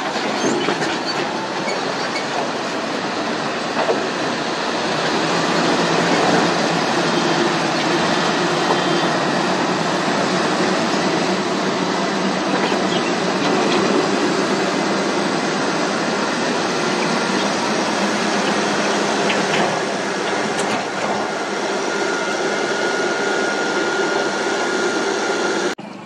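Caterpillar 120K motor grader at work: its diesel engine running steadily under load while the blade scrapes and grinds across the dirt roadbed, a continuous loud mechanical rumble with a faint steady drone in it.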